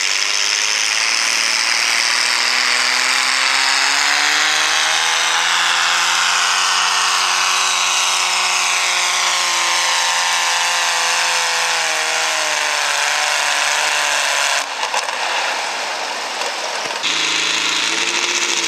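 Super stock pulling tractor's engine running hard under load as it drags the weight-transfer sled. Its pitch climbs over the first few seconds, then falls slowly as the sled's growing drag pulls the revs down. The sound breaks off suddenly about 15 seconds in, and another tractor's engine is heard near the end.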